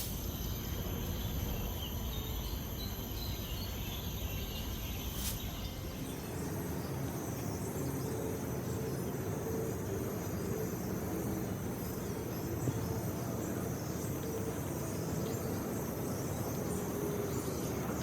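Outdoor ambience of steady insect buzzing, several thin high tones held without a break, over a low steady background noise.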